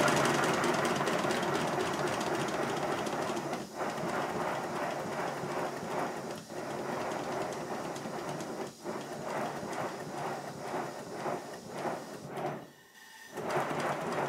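Model steam locomotive running on compressed air: a fast, steady rhythm of exhaust beats from its cylinders and clatter from its coupling rods and valve gear, the repaired valve gear running well. The sound briefly dies away about 13 seconds in, then picks up again.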